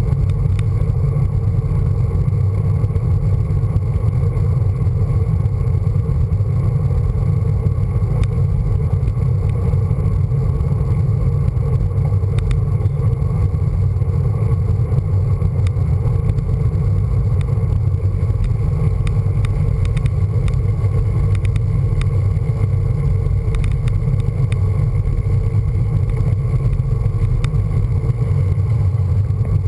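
Steady wind rush buffeting the microphone of a handlebar-mounted camera on a road bike riding along at speed, a constant low rumble with no breaks.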